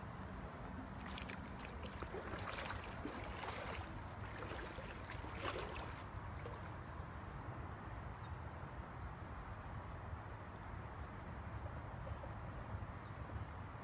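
Steady rush of a river, with bouts of splashing between about one and six seconds in from a fish hooked on a fly rod thrashing at the surface.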